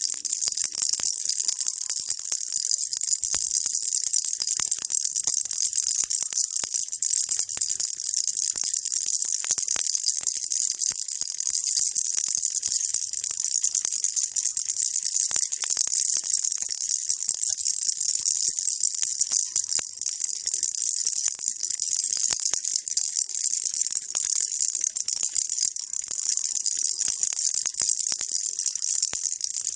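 Baby rattle shaken continuously: an unbroken, even, high-pitched rattling of many small clicks, kept up as a steady white-noise sound.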